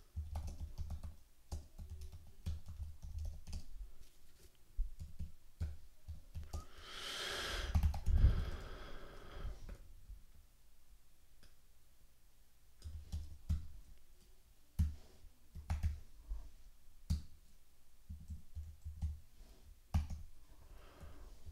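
Computer keyboard typing in short runs of quick keystrokes. About seven seconds in, a louder rushing noise swells and fades over about three seconds.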